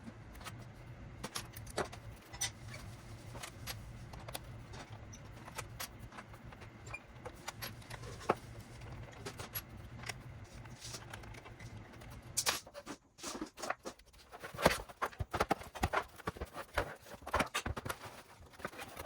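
Scattered small clicks and knocks, like hard objects being handled, over a steady low hum that stops about two-thirds of the way through; after that the clicks and knocks come thicker and louder.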